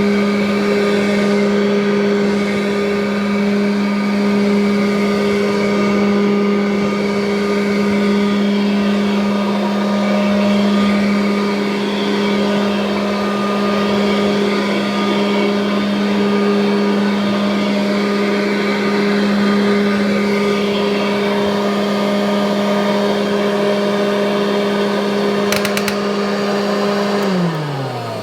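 1984 Kirby Heritage upright vacuum cleaner running at a steady pitch. Near the end there are a couple of sharp clicks, then it is switched off and the motor spins down, its hum falling in pitch.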